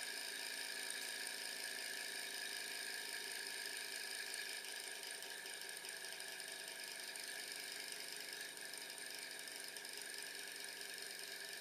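Small gamma-type Stirling engine running on with its burner flame put out, the flywheel, crank and pistons making a steady mechanical whir that grows slightly quieter as it coasts on its stored heat.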